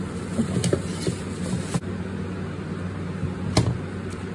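A steady low mechanical hum, with a few sharp clicks over it.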